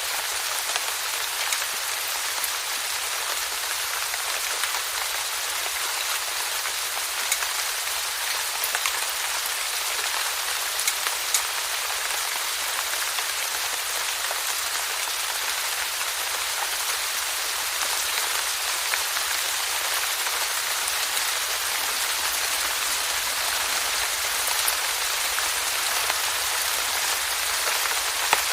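Steady rainfall, with scattered individual drops ticking sharply on a surface.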